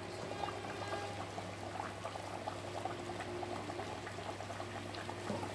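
A potato-stuffed kachori deep-frying in hot oil in a kadai over high heat. The oil bubbles and crackles steadily, with many small pops.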